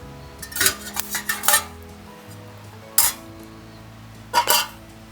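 Metal parts of a compact DOD Puchi Moe Fire fire pit clinking and clattering as it is handled and set up: a quick run of clanks in the first couple of seconds, a single one about three seconds in, and a double clank near the end. Background music plays underneath.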